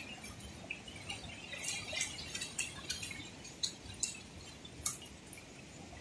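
Steady rush of fast-flowing stream water, with scattered short clicks and drips, most of them between about one and a half and five seconds in.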